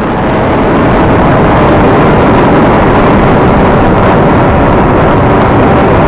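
Reptile S800 flying wing in flight, heard through its onboard camera's microphone: a loud, steady rush of wind buffeting mixed with the drone of its electric motor and propeller, rising over the first second and then holding steady.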